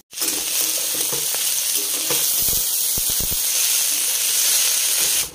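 Vegetables frying in hot oil in a pan, a steady sizzle, with a few soft low knocks about halfway through.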